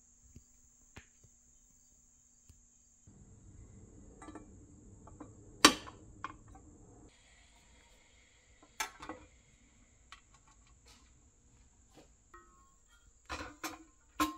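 Painted pressed-steel toy parts being handled and set down on a wooden workbench: scattered sharp metallic clicks and knocks, the loudest about five seconds in and a cluster near the end. A faint steady high-pitched whine runs underneath.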